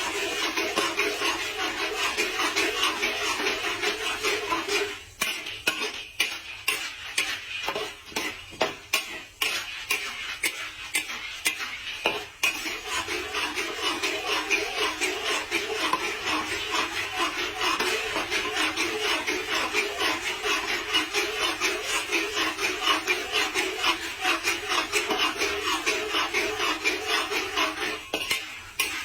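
Popcorn popping in a pot: rapid, continuous clicking and rattling, with a patch of sparser, louder knocks from about five to twelve seconds in.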